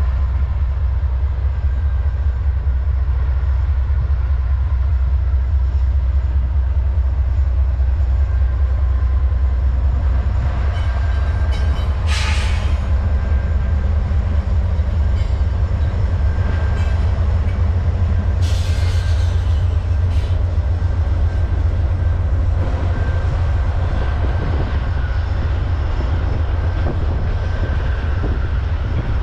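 Norfolk Southern freight train passing: the diesel locomotives go by with a deep steady rumble, then the freight cars roll past. Two brief hissing bursts come about twelve seconds in and again about six seconds later.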